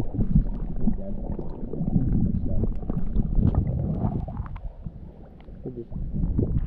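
Shallow lake water sloshing and gurgling around hands held down in it to release a trout, a low rumble with small splashes, dipping quieter about five seconds in.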